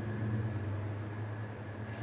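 Pickup truck engine running, a steady low hum that slowly fades.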